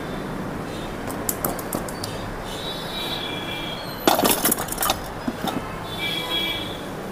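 Clear plastic cupping cups and their hand pump being handled: a few light clicks, then a quick cluster of sharp plastic clicks and clacks about four seconds in. Under them runs a steady hiss with faint high tones.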